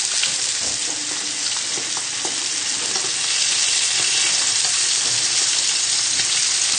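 Whitebait deep-frying in a pan of hot oil: a steady, dense sizzle with faint scattered crackles.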